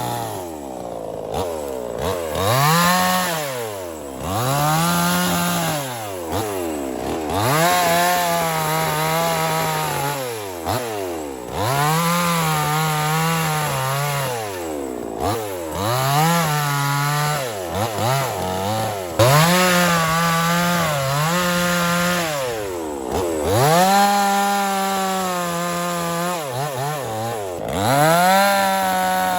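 Small two-stroke mini chainsaw cutting wood. The engine revs up and drops back again and again, about every two to three seconds.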